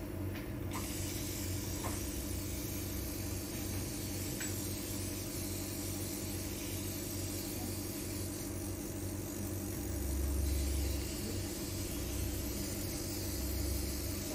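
Steady low background hum with hiss. A deeper rumble swells briefly about ten seconds in and again near the end.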